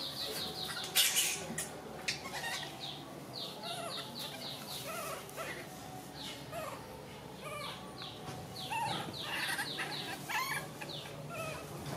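Animal calls: repeated runs of short, high-pitched, falling chirps, several a second, coming in bursts. A sharp knock sounds about a second in.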